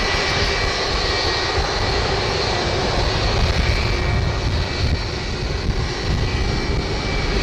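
Airbus A330's twin jet engines running steadily while it taxis: a constant rush with a thin high whine over it.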